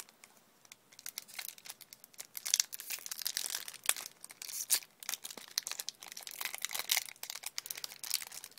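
Foil wrapper of a Yu-Gi-Oh! Secrets of Eternity booster pack crinkling as it is handled and torn open, a dense crackle that starts about a second in.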